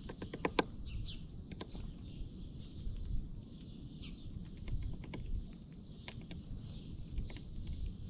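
Small birds feeding on the ground, giving scattered short high chirps and call notes among light clicks and ticks, several clicks close together in the first second, over a low steady rumble.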